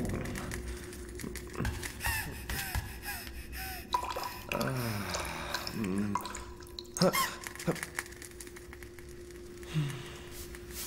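Cartoon sound effects: dripping water, short squeaky chirps and gasp-like breaths and falling vocal glides, with a few clicks over a steady low hum.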